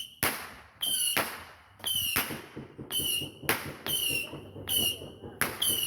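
Multi-shot firework going off in a rapid, regular series of about ten shots. Each shot is a sudden pop with a hiss, followed by a short, high whistle.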